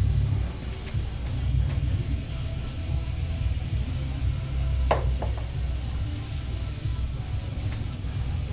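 Compressed-air paint sprayer hissing steadily as it sprays waterborne paint, cutting out briefly about one and a half seconds in and again near the end, over a constant low background rumble. A couple of light clicks about five seconds in.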